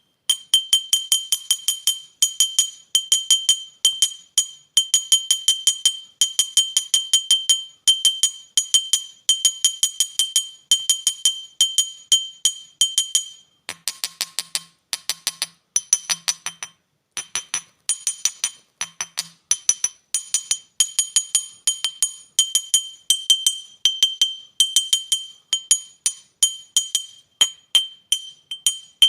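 A lighter tapped rapidly against a glass beer bottle: quick runs of clinks in short bursts, each ringing at the same high pitch. For a few seconds midway the clinks turn duller and lower without the ring, then the ringing taps resume.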